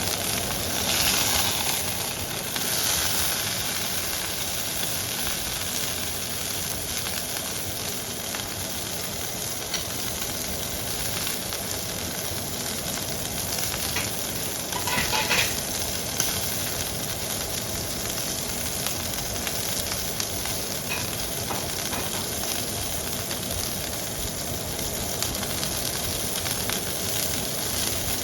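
Flat iron steak sizzling steadily in a Misen nitrided carbon nonstick pan during a hard sear over high heat. There is louder crackling near the start and again about halfway.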